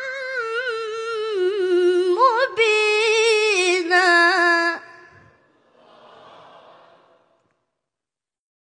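A boy's voice in Qur'anic tilawah recitation, drawing out one long melismatic note whose pitch wavers up and down in ornaments, jumping higher about two and a half seconds in. The voice stops about five seconds in.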